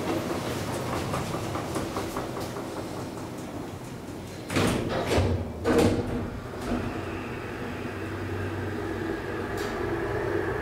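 KONE-modernised hydraulic elevator: the car doors close with two loud thuds about halfway through, then the hydraulic pump unit runs with a steady hum and whine as the car travels up.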